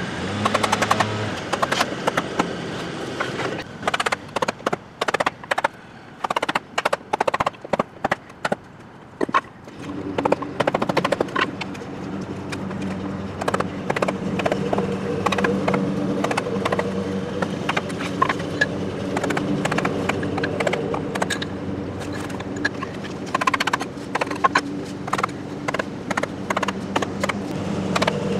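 Rubber mallet striking a wooden block to tap a vinyl Trim-A-Slab tapered expansion joint strip down into the gap between a foundation wall and pavers: repeated sharp knocks, often in quick runs of taps. A steady low mechanical hum runs underneath from about ten seconds in.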